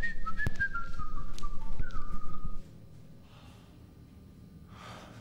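A person whistling a short tune, the notes stepping down in pitch and ending on a falling slide, over knocking and a low rumble. Everything stops abruptly about two and a half seconds in, leaving quiet room tone.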